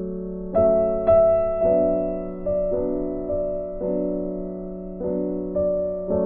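Background piano music: notes and chords struck one to two times a second, each left to die away.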